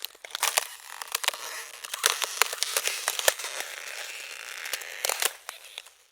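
Ice cracking and crackling: a dense run of sharp snaps and crackles over a hiss, with the loudest snaps about half a second in, around two and three seconds, and near five seconds, dying away just before the end.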